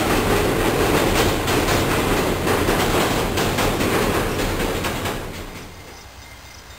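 VIA Rail passenger train passing close by: a heavy rumble with wheels clacking over rail joints. About five seconds in, the sound falls away quickly to a much fainter background.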